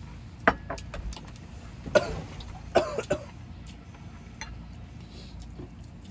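A person coughing several times in short, harsh coughs, between about half a second and three seconds in.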